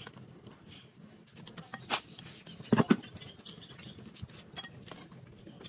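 A metal spoon clicking and scraping against a stainless steel bowl of rice as a toddler eats, in scattered small knocks. A brief, louder knock comes near the middle.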